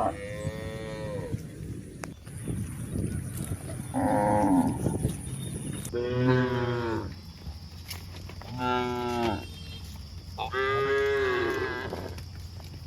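Cattle mooing: five separate moos a second or two apart, each about a second long and rising then falling in pitch, over a steady low background hum.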